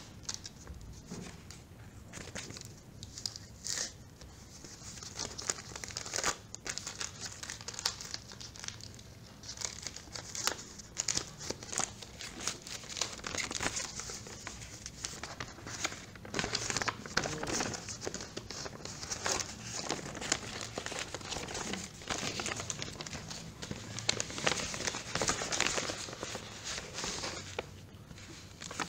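Plastic packaging wrap crinkling and rustling as it is handled and pulled away, in irregular crackles that grow busier after the first few seconds. A paper instruction sheet is rustled as it is unfolded near the end.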